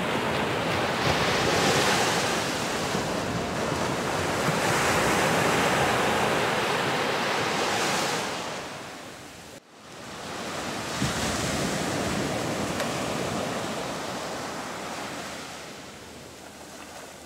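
Ocean surf breaking and washing up a sandy beach, rising and easing in long swells, with a brief dropout about halfway through.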